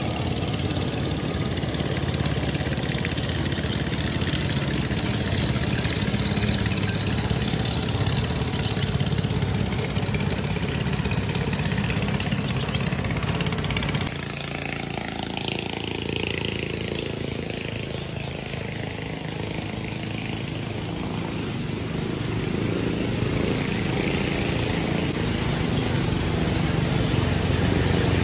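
A motor engine running steadily under a broad rushing noise; it eases off a little after halfway and builds up again near the end.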